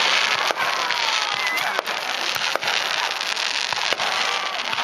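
Fireworks display: aerial shells burst with four sharp bangs spread across the few seconds, over a steady dense hiss.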